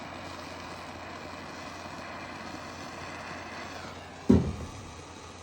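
Propane torch burning with a steady rushing hiss, and a single loud thump a little over four seconds in.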